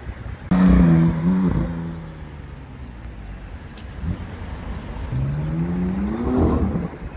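A car engine revving hard, starting suddenly about half a second in and wavering for about a second, then a second burst of acceleration near the end, rising steadily in pitch before cutting off.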